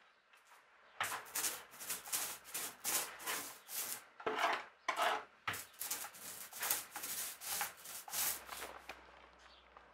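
A hand tool scraping along the edge of a wooden timber in quick repeated strokes, about two to three a second. The strokes begin about a second in, pause briefly near the middle, and stop shortly before the end.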